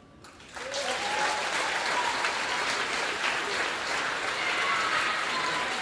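Crowd applauding, starting about half a second in and holding steady, with a few calls rising over it.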